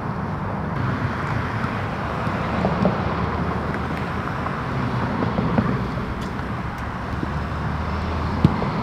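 Steady outdoor rumble of distant traffic with a low hum, and a few short, sharp knocks of a soccer ball being kicked, the loudest near the end.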